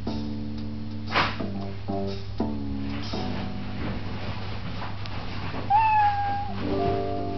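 Animal DVD soundtrack: plucked-string music playing in short phrases, with a single cat meow about six seconds in, the loudest sound.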